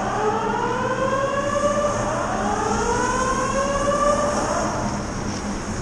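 Building fire alarm sounding a repeated rising whoop tone. The sweeps overlap one another and die away about four and a half seconds in.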